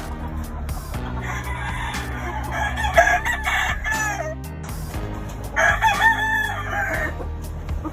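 Gamefowl roosters crowing: a long crow starting about a second in and lasting over three seconds, then a second, shorter crow near the end.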